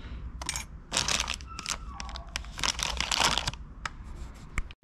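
Plastic packaging of bleed-kit parts crinkling and rustling in several irregular bursts as it is handled, with a few light clicks near the end.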